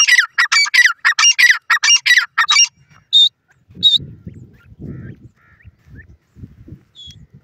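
Grey francolin calling: a fast run of loud notes, about four a second, each sliding down in pitch, for the first two and a half seconds, then two short high peeps. After that only low, irregular rumbling noise and a few faint high chirps.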